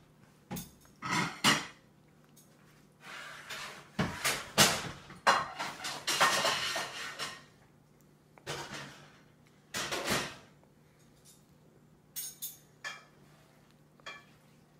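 A toddler's hands knocking and scraping in a plastic feeding bowl as she picks out macaroni with her fingers: an irregular string of short clatters and rattles, busiest in the middle.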